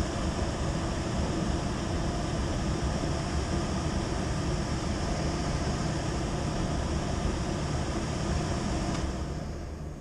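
Trane fan-powered terminal box's blower running: a steady rush of air with a low rumble and a thin high whine over it, fading somewhat near the end.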